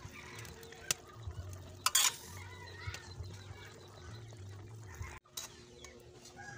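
Metal spoon stirring in an aluminium pot of simmering soup, with sharp clinks of the spoon against the pot about a second in and, loudest, about two seconds in.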